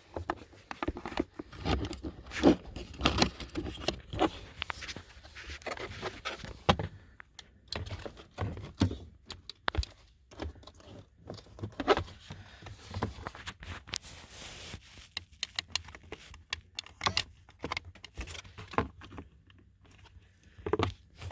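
Handling noise: a long run of irregular clicks, knocks and rattles, with a metallic jangling like keys.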